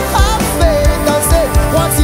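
A man singing live into a microphone over a band, with a steady kick-drum beat of about two to three thumps a second under the sung melody.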